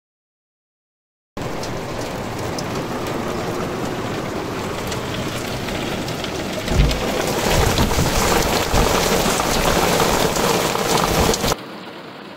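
Heavy rain pouring down, starting abruptly about a second in. A low rumble of thunder comes partway through. The downpour falls off to a lighter hiss near the end.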